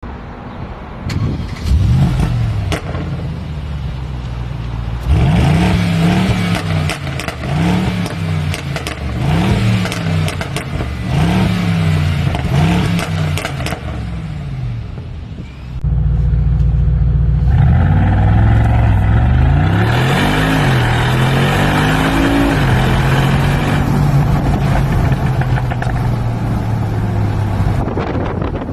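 Mercedes-AMG G63's V8 through a tuned exhaust, revved in about six quick blips with sharp crackles and pops as the revs fall. Later it is run hard, with more rising revs, and settles into a steady drone over the last few seconds.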